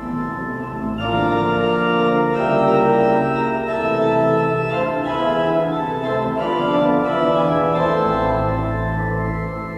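Pipe organ playing full sustained chords, swelling about a second in, with a deep pedal bass note entering near the end.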